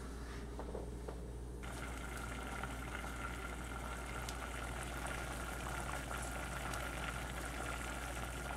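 Butter, white wine and fish juices boiling in a stainless steel saucepan, reducing toward a syrupy sauce: a steady bubbling that comes in about one and a half seconds in.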